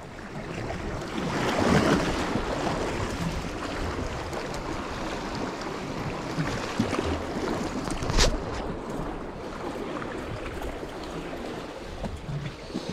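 Sea waves washing against the shore, a steady rushing with a swell near the start. A single sharp click about eight seconds in.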